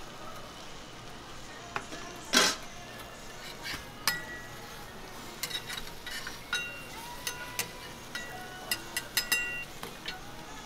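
Metal cooking utensils clinking and tapping on a steel griddle: a spatula and square metal egg rings, with one loud clatter about two seconds in and a run of sharp, ringing clinks through the second half, over a steady background hiss.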